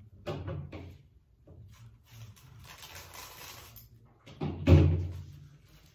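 Handling noises from wrapping seat foam in plastic cling wrap: a soft rustle of the wrap in the middle and knocks on the workbench, the loudest a dull thump about four and a half seconds in.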